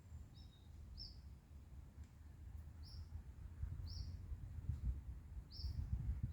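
A small bird chirping, short high single notes about once a second, over a low steady rumble.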